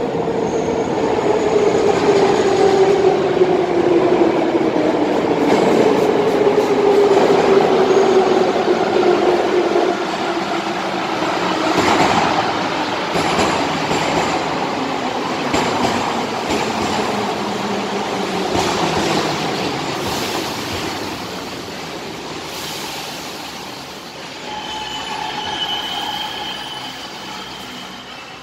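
Metro train pulling into the station and slowing to a stop. Its whine falls steadily in pitch over the first ten seconds as it brakes, over the rumble of the cars rolling past. The sound eases off as the train halts, with a few brief higher tones near the end.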